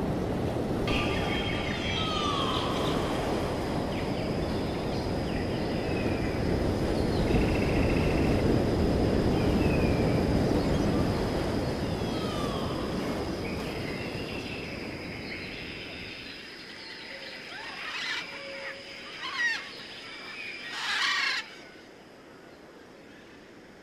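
Sea surf washing on a beach, heard as a steady rush with wind on the microphone, under small birds chirping. The surf fades out about two-thirds of the way through, leaving a few louder bird calls near the end.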